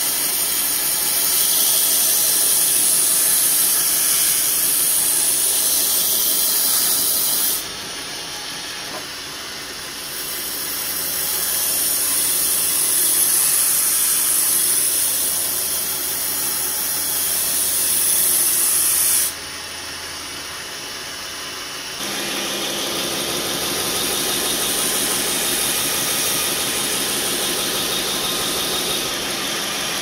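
Belt grinder running with a steel knife blade pressed against the moving abrasive belt, a loud steady grinding hiss. The grinding eases off twice as the blade is lifted and then comes back for further passes.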